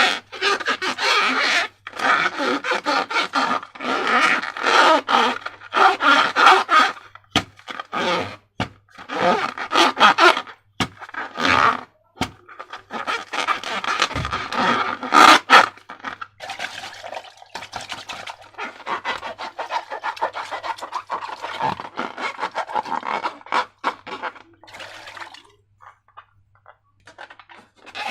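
Slime being worked by hand: repeated sticky, squishy crackling and scraping in bursts a second or two long, with a few sharp clicks, growing quieter and sparser near the end.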